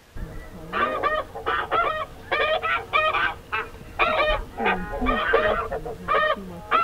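A large flock of snow geese calling: many short, nasal honks overlapping in a continuous clamour.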